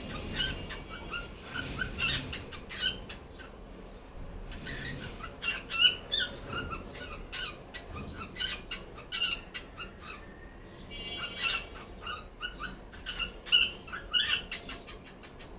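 Cockatiel chattering to itself: a busy run of short chirps, squeaks and squawks, with a brief held whistle a little past the middle.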